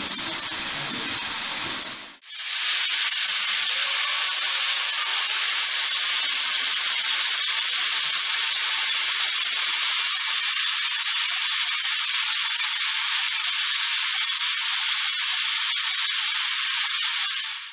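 Aluminium pressure cooker on a gas burner venting steam in a loud, continuous hiss, the release of built-up pressure. A softer steady hiss comes before it for about two seconds.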